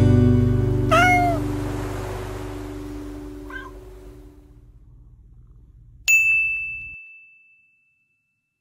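A domestic cat meowing once about a second in, with a fainter call a few seconds later, over the fading end of a guitar chord. About six seconds in, a single bright ding rings out for about a second.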